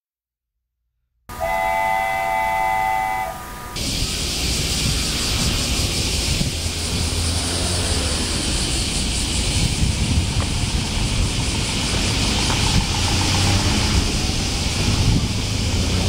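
After a second of silence, a steady whistle-like tone of several pitches sounds for about two seconds. From about four seconds in, a dense chorus of cicadas sets in as a loud, steady high buzz over a low rumble.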